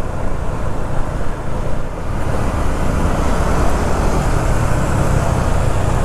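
KTM 390 Duke single-cylinder motorcycle engine running while riding slowly in traffic, under a steady noise of surrounding traffic. The hiss grows a little brighter about two seconds in.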